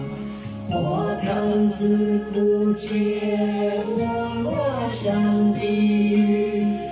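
A man singing a Buddhist devotional chant-song with long held notes and sliding pitches over a musical backing.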